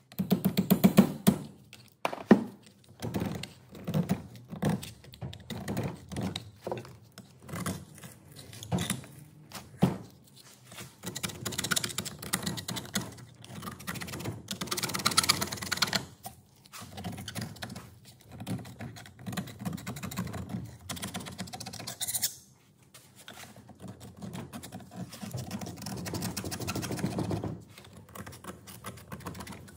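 Screwdrivers tapping, knocking and scraping against a Zetor 3011 tractor cylinder head as it is being cleaned out and taken apart. Irregular sharp knocks and clinks, with longer stretches of scraping in the middle and near the end.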